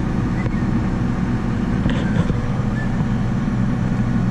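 Farm tractor's engine running steadily, a constant low drone heard from inside the cab.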